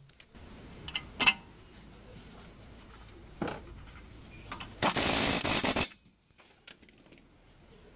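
Metal tools knocking and clinking during wheel bearing work, then a power tool runs in one burst of just under a second, about five seconds in.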